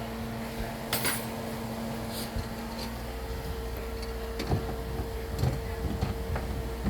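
Scattered knocks and clicks of hand work on a kitchen sink installation, getting more frequent and heavier about halfway through, over a steady low electrical hum.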